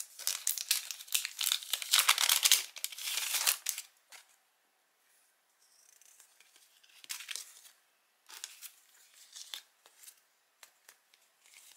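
Paper envelope being torn open, with dense tearing and rustling for about four seconds. After that come sparse, softer rustles of paper sticker sheets being handled.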